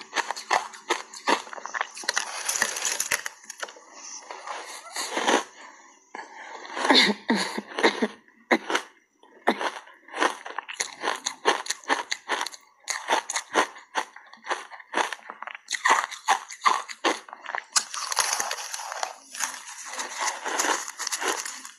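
Refrozen ice coated in matcha powder being bitten and chewed close to a clip-on microphone: a fast, irregular run of sharp crunches, thickening into continuous crunching near the start and again near the end.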